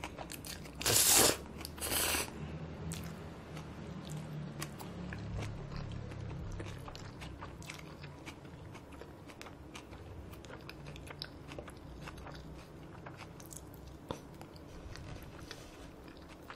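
A person eating Paldo bibim-myeon noodles close to the microphone: two loud slurps about one and two seconds in, then steady chewing with many small wet clicks.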